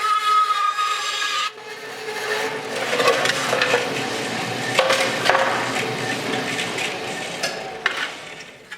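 Bandsaw cutting a thin sheet-steel car body panel: a steady whine for about a second and a half, then a harsh scraping and rattling with many sharp clicks that gradually fades toward the end.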